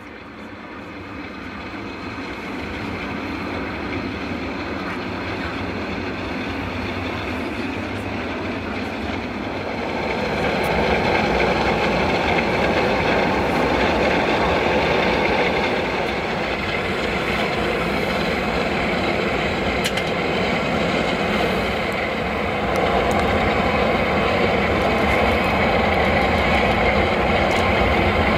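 Jet airliner engines at takeoff thrust during the takeoff roll: a loud, broad jet noise that builds from the start, grows louder about ten seconds in and again a few seconds before the end.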